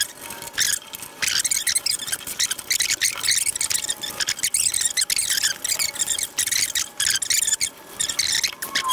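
Metal block-off fixtures being worked and clamped onto a two-stroke expansion chamber by hand: repeated irregular bursts of high, hissing scraping noise, with a faint thin whistle near the end.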